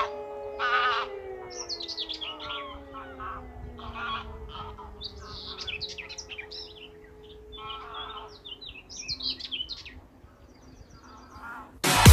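A civil-defence siren winding down at the end of a routine siren test, its pitch falling slowly as it fades over about six seconds, while small birds chirp over it. Loud electronic music cuts in at the very end.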